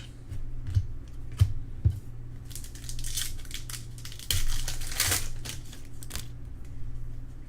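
Trading cards and their pack wrappers being handled: a few light taps on the table, then bursts of crinkling and rustling.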